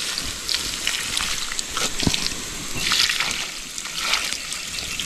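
Water poured and splashed onto a campfire to put it out, with scattered crackles and a sharp snap about two seconds in.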